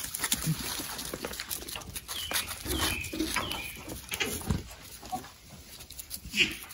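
Nigerian Dwarf goat kids bleating in short calls, a few around the middle and a louder one near the end, over scattered soft knocks and rustling.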